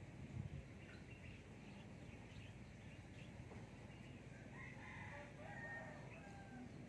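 A rooster crows once, faintly, for about two seconds starting around four and a half seconds in, over low outdoor background noise. A short low thump comes near the start.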